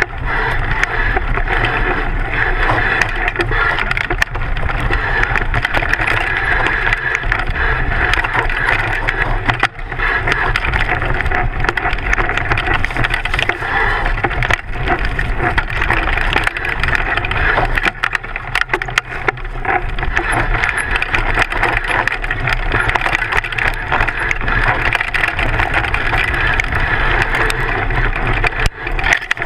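Mountain bike descending fast on a dirt forest trail: the knobby front tyre rumbles over the ground and the bike rattles, with frequent sharp knocks from bumps and roots.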